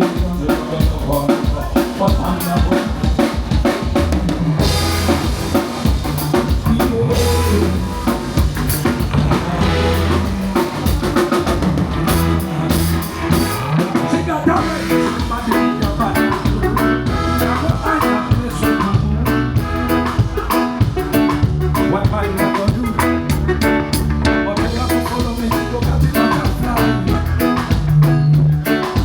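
Band music with a full drum kit keeping a steady beat, kick drum and snare with rimshots, under bass and other pitched instruments, played at a sound check.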